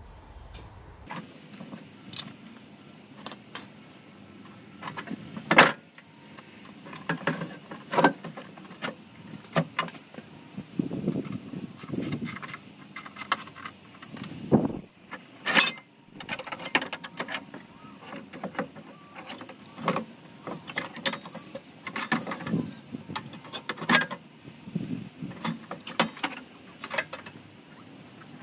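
Irregular metallic clinks, knocks and rattles from a Fiat 500 engine and its fittings as it is worked loose by hand and lowered out of the engine bay on a transmission jack, with a few louder clanks among them.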